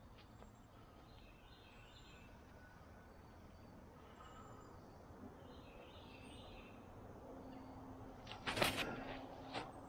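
Faint woodland ambience with a few soft bird chirps. Near the end comes a short loud rush of noise as a disc golf drive is thrown, followed by a smaller scuff about a second later.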